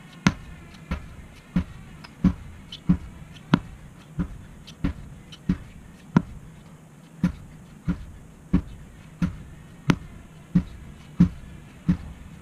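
Sledgehammer striking a tractor tire over and over, a dull thud about every two-thirds of a second with an even, steady rhythm.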